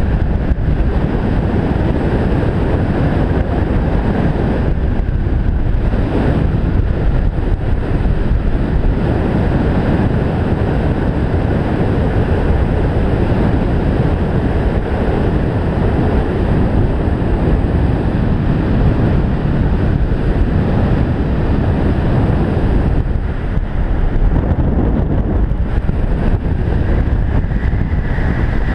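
Strong wind rushing and buffeting over a wide-angle action camera's microphone at speed during a fast speedriding descent on skis: a loud, steady roar that eases briefly a few times.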